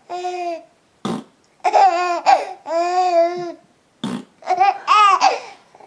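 Young child laughing in a string of high-pitched bursts, some short and some drawn out.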